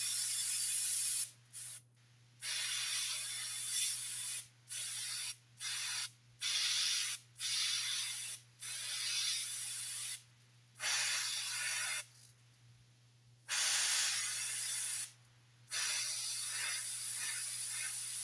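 Airbrush spraying paint with a steady hiss that stops and starts about ten times in short pauses, one of them longer, as the trigger is let off and pressed again.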